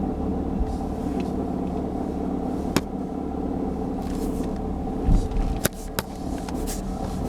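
A 2006 Honda Civic's R18 1.8-litre four-cylinder engine running steadily at idle after a cold start, with the rattle it makes when cold. Three sharp clicks stand out over the hum, and a low thump, the loudest sound, comes about five seconds in.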